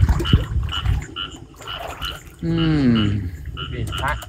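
Frogs calling in a rhythmic chorus, about two to three calls a second. Low knocks in the first second, and one drawn-out call falling in pitch about halfway through, the loudest sound.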